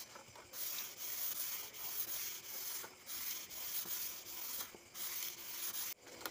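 Sandpaper rubbed back and forth along a wooden billiard cue shaft to smooth it: a dry hiss in repeated long strokes with short pauses between them.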